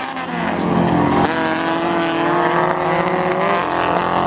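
Autocross race car engines running hard on a dirt track, the engine note climbing and shifting with throttle and gear changes.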